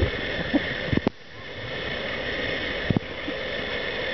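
Steady wind noise on the microphone, with a few low thumps at the start, about a second in and near three seconds.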